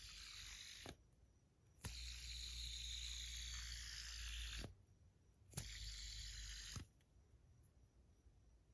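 Titanium fidget spinner spinning between the fingers: a faint hissing bearing whir in three spells, each starting and stopping abruptly.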